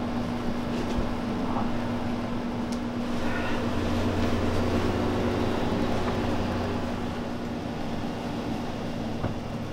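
A machine running with a steady low hum over a rushing noise, swelling slightly in the middle.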